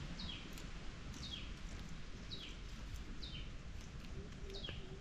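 A bird repeating a short, high call that falls in pitch, about once a second, five times, over a faint low rumble.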